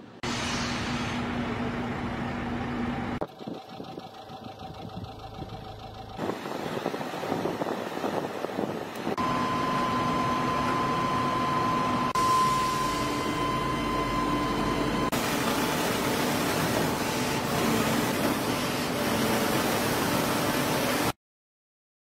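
Construction-site machinery with engines running, heard as a string of short clips that cut every few seconds. A steady high whine runs through the middle, and the sound stops abruptly near the end.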